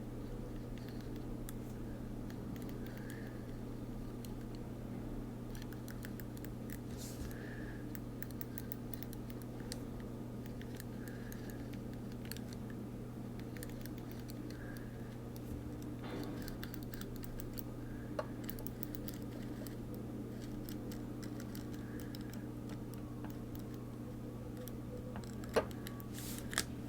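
Faint clicks and rustles of a Deco Rush decorative roller tape being pressed and run across planner paper, over a steady low hum.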